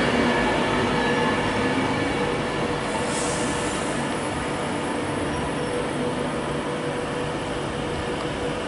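Express passenger train running along the rails past the platform, a steady rumble of wheels and running gear with a faint held whine, slowly fading as it draws away.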